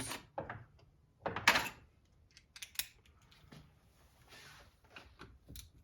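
Scattered clicks, taps and clatter of tools and RC car parts being handled, with a louder knock about one and a half seconds in.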